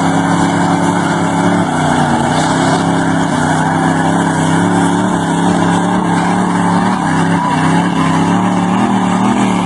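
Lifted pickup trucks' engines held at high revs with a steady, slightly wavering note as the trucks strain against each other, tyres spinning in the grass.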